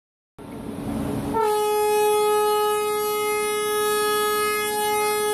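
Train rolling noise starts suddenly about half a second in. About a second later a train horn sounds and holds one long steady note through the rest.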